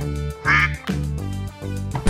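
Domestic duck quacking once, about half a second in, over background music with steady low tones.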